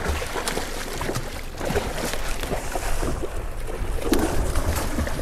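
Water splashing as a hooked black marlin thrashes at the side of the boat and then leaps clear of the surface, with a few sharp slaps and wind rumbling on the microphone.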